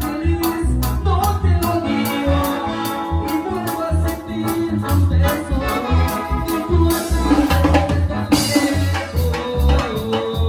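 Latin grupo band music with a melody over a steady bass beat about twice a second and shaker percussion.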